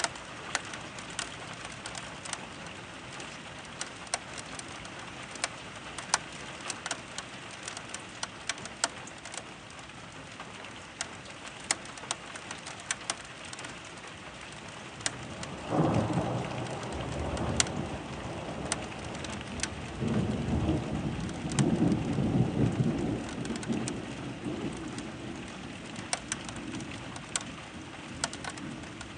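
Steady rain with many sharp drops ticking close by. Thunder rumbles in suddenly about halfway through, and a second, longer peal rolls a few seconds later.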